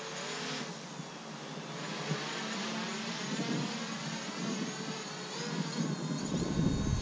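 DJI Mavic Pro quadcopter's propellers humming overhead in flight, the pitch drifting up and down. A low rumble, like wind on the microphone, comes in about six seconds in.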